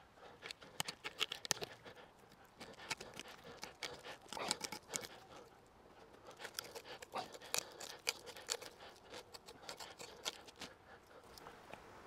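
A wooden stick being worked by hand with a small tool: quick, irregular scraping and clicking strokes in busy spells, with short lulls about two and six seconds in.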